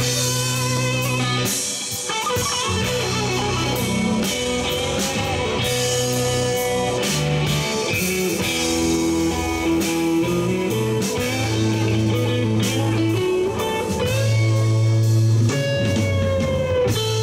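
Live blues band playing a slow instrumental passage: electric guitar lead with bent notes over bass, keyboard and drums.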